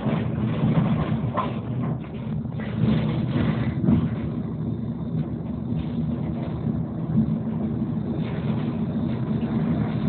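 Tram car running along the line, heard from inside the car: a steady low motor hum over the rumble of wheels on rails, with a few short knocks.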